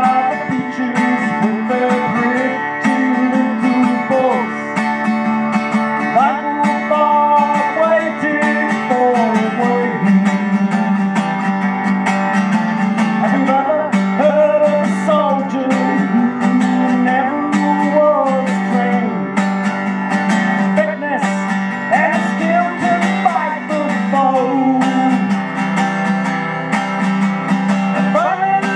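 Acoustic guitar strummed steadily, with a man singing a folk song over it.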